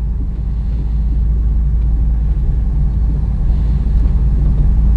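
Ford Super Duty service truck's engine running at low speed as the truck backs up slowly, a steady low rumble heard from inside the cab, growing slightly louder.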